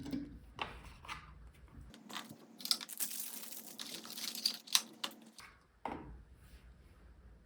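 Toy-car packaging being handled: rustling and crinkling with scattered sharp clicks, densest for a few seconds in the middle.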